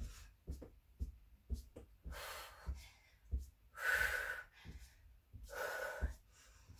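Hard breathing during mountain climbers: three loud, breathy exhalations, under a second or more each and spaced a little under two seconds apart. Under them, the feet land on the exercise mat with soft low thuds about twice a second.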